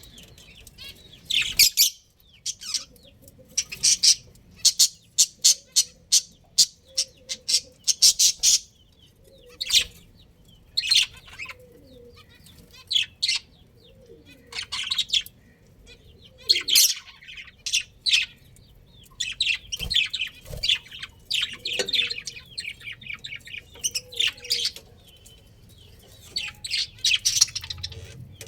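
Budgerigars chirping: many short, high chirps, often in quick rapid runs, with brief pauses between.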